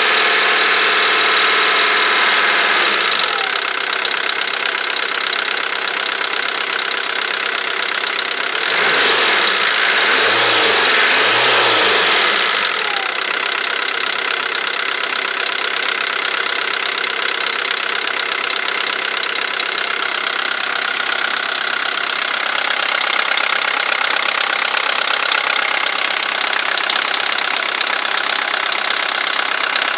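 VW Golf III 1.9 turbo-diesel (AAZ) four-cylinder engine idling with a knocking, ticking noise; about a third of the way in it is revved up and back down twice.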